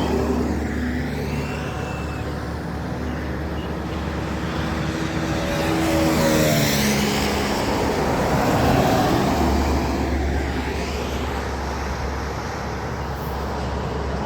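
Road traffic on a highway: engines running as vehicles go by, one passing about six to seven seconds in with its engine pitch dropping as it passes.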